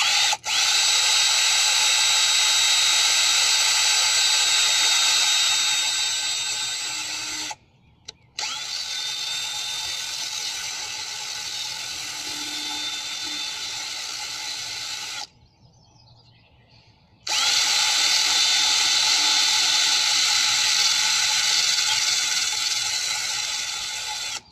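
Power drill running in three long bursts, its whine rising as it spins up each time, used to clean the threads of an old cylinder-head bolt.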